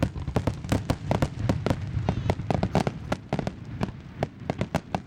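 Fireworks display with aerial shells bursting in quick succession: a dense run of bangs and crackles, several each second, over a low rumble.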